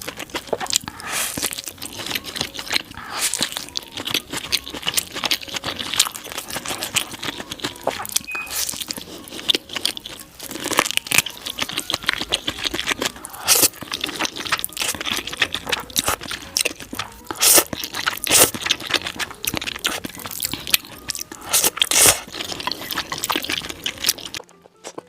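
Close-miked eating sounds: a dense run of crunchy bites and chewing, stopping abruptly just before the end.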